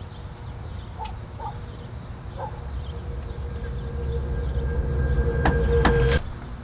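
A low droning swell with a steady held tone grows louder and louder. A fist knocks on a front door a few times near the end, and the drone cuts off suddenly right after the knocks.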